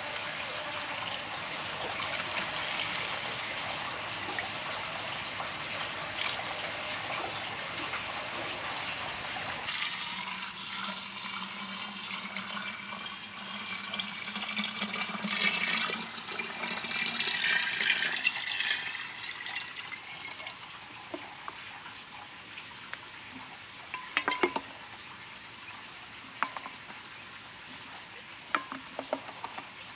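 Water being poured into a large glass jar in a steady stream, its note rising as the jar fills. The pour stops about twenty seconds in, leaving a few drips and light clinks.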